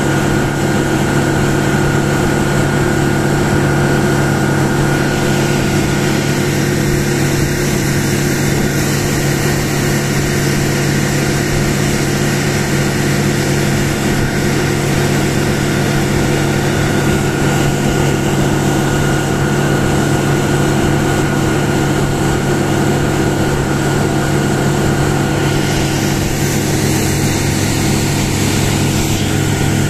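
Outboard motor running steadily, driving a small boat under way, with the rush of water from the boat's wake.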